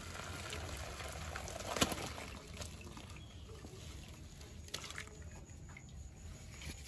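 Water pouring out of a tipped aluminium pot through a colander and splashing onto concrete, easing off after about two and a half seconds. There is a sharp metal clink about two seconds in and a few lighter clinks later.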